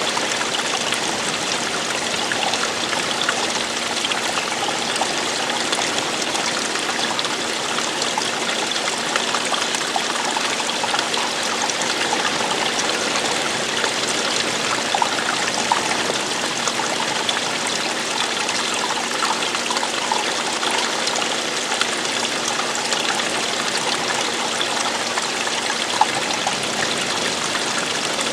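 Running water trickling and splashing steadily, like a small stream or cascade.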